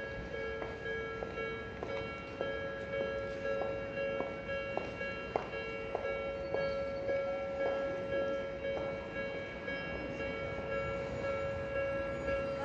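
Japanese railway level-crossing alarm ringing over and over, about one strike every 0.6 seconds, its tones running on steadily between strikes.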